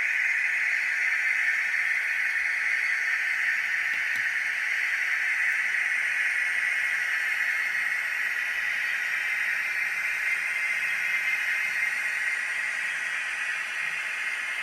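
Sound decoder in an N gauge model Class 56 diesel locomotive playing its engine sound through a tiny speaker, a steady thin hissy running note, gradually getting a little quieter toward the end.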